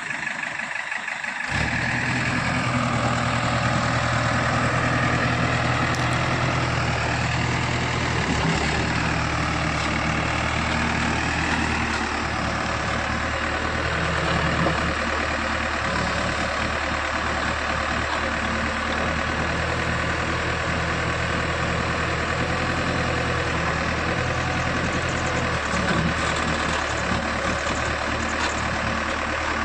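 JCB 3DX backhoe loader's diesel engine running steadily at working revs, coming in sharply about a second and a half in. A higher whine wavers up and down over the first several seconds.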